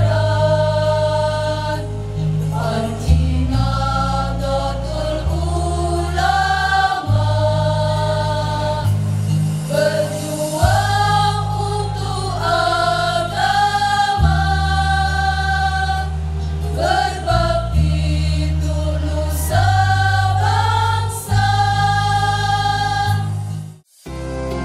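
Women's choir singing together into microphones over an electronic keyboard's low held chords, which change every second or two. Near the end the singing cuts off abruptly and soft instrumental music takes over.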